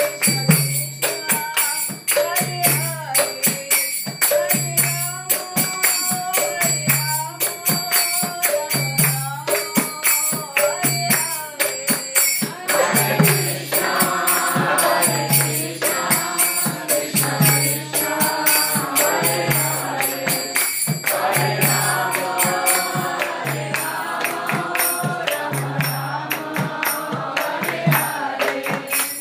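Devotional kirtan chanting: sung lines over a steady low beat about once a second and constant jingling percussion, with many voices singing together from about halfway through.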